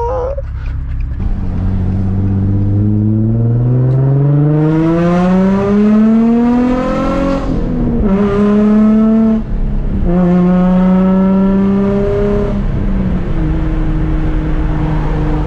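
Nissan 350Z's 3.5-litre V6 with a Tomei Y-pipe and Invidia test pipes (catalytic converters deleted), heard from inside the cabin under hard acceleration. The revs climb for several seconds, drop with an upshift about eight seconds in, climb, drop with another shift about nine and a half seconds in, climb again, then settle to a steady cruise near the end. The exhaust is insanely loud.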